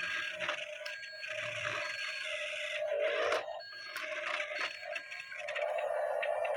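Remote-control toy excavator's small electric motors whining steadily while the bucket scrapes through soil, with a few clicks.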